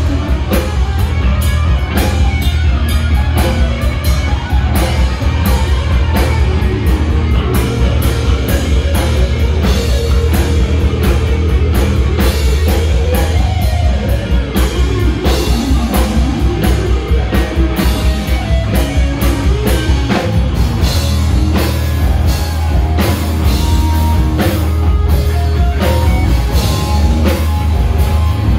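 Live rock band playing loud: electric guitar through a Marshall amp, electric bass and a drum kit keeping a steady beat.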